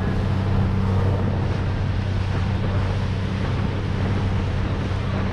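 A boat's engine running with a steady, even drone, with wind and rushing water over it.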